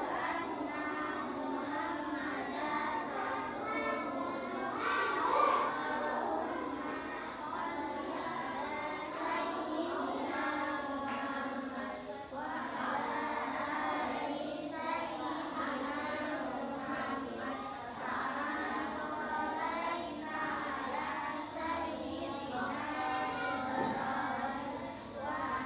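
A group of young children reciting prayers aloud together in a sing-song chant, in phrases a few seconds long with short breaks between them.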